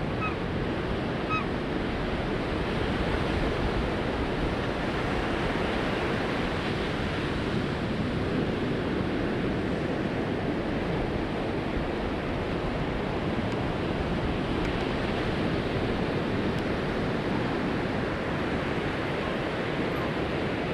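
Steady rushing noise of ocean surf and wind on the microphone, even in level throughout.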